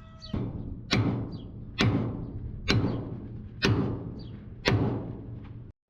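Hammer blows on metal at about one a second, each a sharp strike that rings briefly, as in panel or chassis straightening on a damaged truck.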